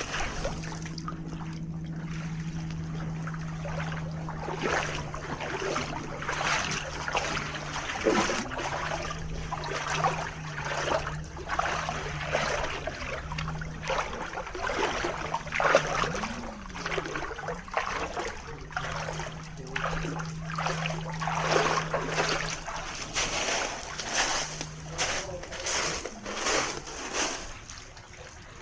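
Small waves splashing and lapping at the shore again and again, with a boat motor droning steadily offshore. The motor's pitch dips and recovers about two-thirds of the way through and fades out shortly after.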